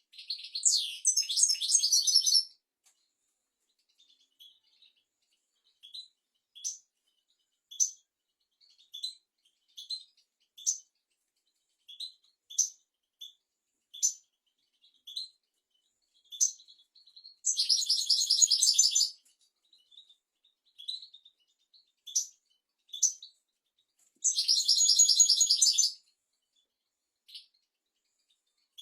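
European goldfinch singing: three long, rapid twittering phrases of about two seconds each, near the start, about two-thirds in and near the end, with short single high chirps scattered between them.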